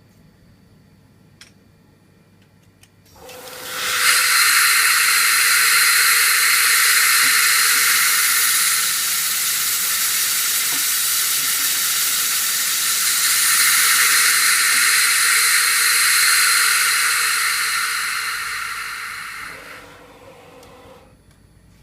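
Bridgeport CNC mill working a rigid tapping cycle in aluminium with an M6 spiral flute tap: a loud, steady hiss rises about three seconds in, holds, and fades away near the end.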